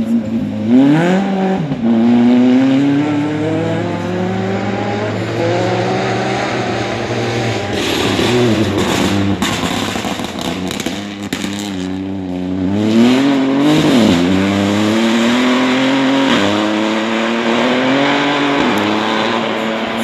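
Rally car engines revving hard at full throttle, the note climbing steeply, dropping off sharply and climbing again several times as the drivers shift gear and lift off. A stretch of rushing hiss mixes in midway.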